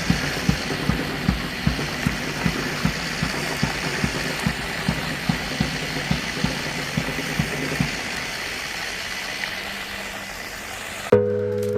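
Small DC motor of a homemade toy backhoe loader running, with a regular knock about two to three times a second that stops about eight seconds in. Music starts near the end.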